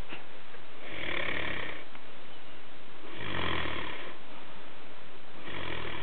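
A person snoring: three drawn-out snores, each about a second long, coming roughly every two and a half seconds.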